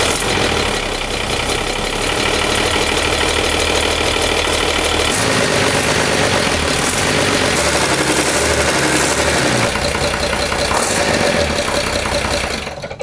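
Freshly overhauled 230 hp turbocharged Mercedes marine diesel running in the confined engine room on its first run after the rebuild, a loud, steady diesel clatter. Its note changes about five seconds in, and the sound cuts off abruptly near the end.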